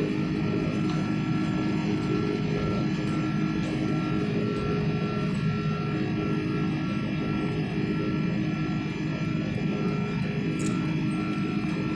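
Steady cabin noise of an airliner in flight: an even drone of engines and rushing air, with a thin steady tone above it.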